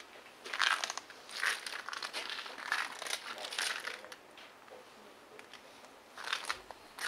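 Irregular crinkly rustling and crunching as people shift and handle things at the podium microphone, in several bursts, quieter for a couple of seconds, then again near the end.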